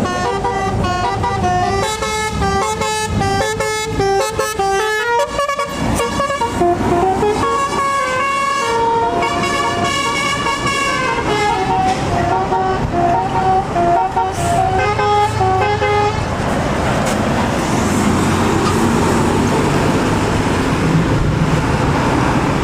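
A tour bus's 'telolet' musical horn playing a quick melody of short stepped notes, stopping about sixteen seconds in; after that only the steady noise of engines and traffic remains.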